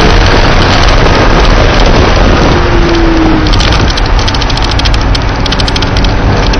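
Loud, distorted in-car noise of a Porsche being driven on track: engine, wind and road noise blended together, with a brief engine tone about three seconds in.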